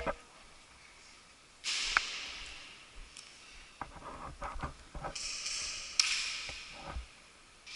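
A player breathing hard close to the microphone, two long exhalations that fade out, with scattered clicks and knocks of handled gear between them.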